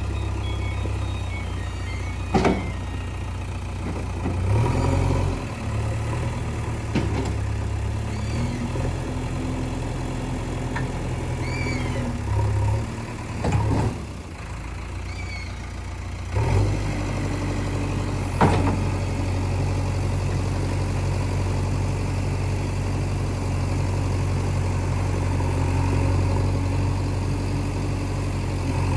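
JCB 3DX backhoe loader's diesel engine running and changing speed under load, with several sharp clanks and knocks from the machine working.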